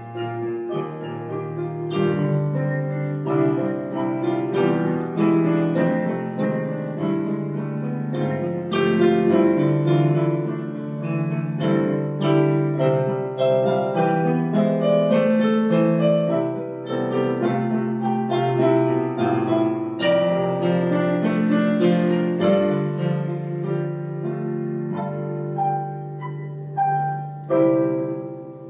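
Piano music: melody notes played over held chords.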